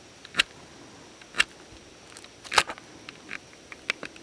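A flashlight's switch clicked several times, sharp single clicks about a second apart with the loudest about two and a half seconds in, as the light is switched to a brighter mode.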